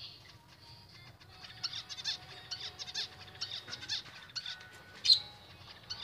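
Caged budgerigars chirping and chattering in a quick run of short, sharp calls that begins about a second and a half in, the loudest call just after five seconds.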